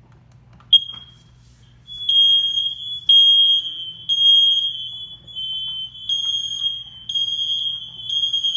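BRK 3120B smoke alarm on test: a short chirp as the test button is pressed, then from about two seconds in its piercing horn sounds in the three-beep temporal pattern: three beeps, a pause, three more. A second alarm's slightly lower tone overlaps it, carrying on between the beeps.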